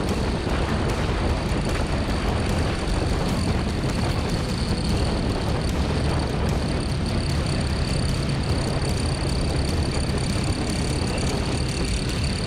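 Motorcycle riding at speed on a race track: engine and wind rushing steadily, with no clear rise or fall in engine pitch.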